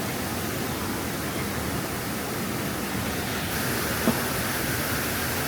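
Steady rushing of river waterfalls, an even hiss of falling water that grows a little brighter about three and a half seconds in. A single short, sharp sound cuts through it about four seconds in.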